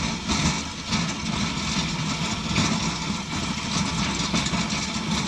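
Wheel loader fitted with a V-shaped snowplow blade, its heavy engine running steadily as the blade pushes snow.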